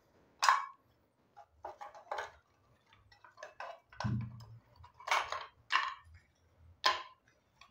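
Pieces of dry coconut shell knocking and clinking as they are picked up and dropped into an old charcoal box iron: about ten short, uneven knocks, with one duller thump about four seconds in.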